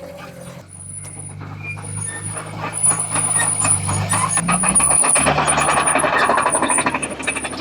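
Diesel engine of heavy earth-moving equipment running under work, its note shifting about two-thirds of the way through, with a dense rattling and clanking that builds from about halfway in.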